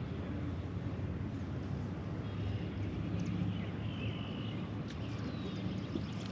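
Outdoor ambience: a steady low rumble with a few short, high bird calls.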